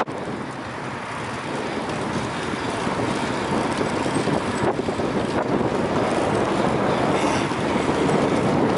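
Steady rushing, wind-like noise that slowly grows louder.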